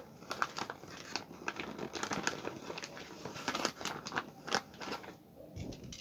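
Gift wrapping paper and tape crinkling and crackling in irregular bursts as the wrapped package is cut and pulled open, with a soft low thump near the end.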